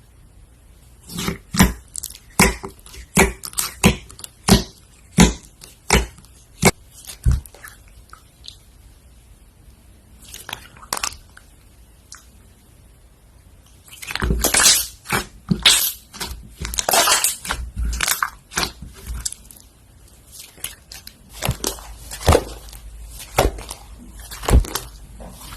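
Slime being squished and pressed, giving sharp clicking pops about two a second, then a dense stretch of crackling about halfway through, then more spaced pops near the end.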